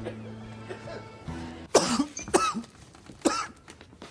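A man coughing three times, short harsh coughs about a second apart, after a stretch of soft background music.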